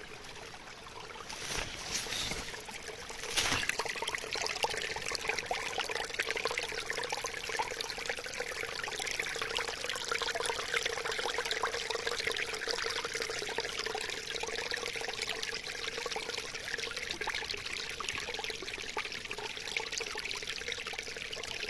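Water trickling and splashing steadily, like a small stream or spout, with a faint steady tone underneath. A few sharp knocks come in the first few seconds.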